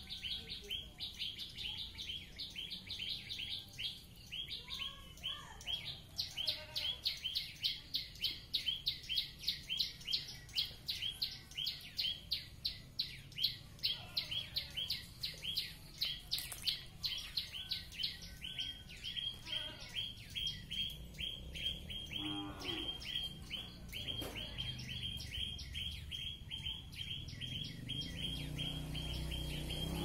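A wild songbird in the tree canopy singing a long, rapid 'tembakan' run of sharp repeated high notes, several a second, loudest in the middle. About two-thirds of the way through, the run gives way to a steadier, thinner high trill.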